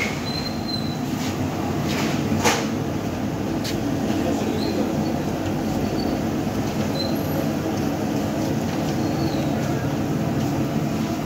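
Jalebis frying in a large wok of hot oil: a steady sizzle and rumble, with a sharp metal clink about two and a half seconds in.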